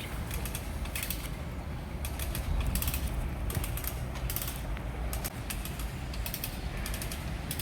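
Winch ratchet clicking in repeated short bursts as it is worked to haul a stuck magnet's rope tight, over a steady low rumble.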